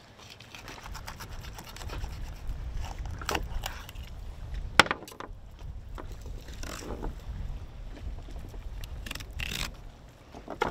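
Fillet knife cutting and scraping along a fish on a cleaning table, in short scrapes with a few sharp clicks, the sharpest about five seconds in. A steady low rumble runs underneath.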